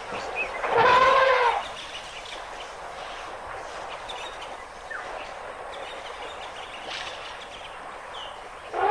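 An African elephant trumpets once, about a second in: a loud, brassy, arching call lasting under a second. Afterwards only faint steady outdoor background with a couple of small high chirps.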